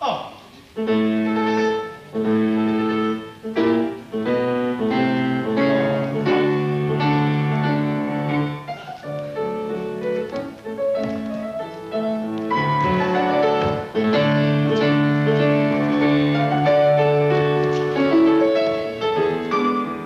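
Classical ballet music led by piano: a melody in short phrases over held low notes and chords.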